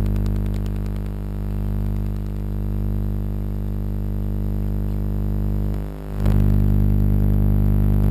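Loud, steady electrical buzz with many evenly spaced overtones, typical of a microwave oven's high-voltage transformer powering a magnetron. It dips briefly about six seconds in and comes back louder.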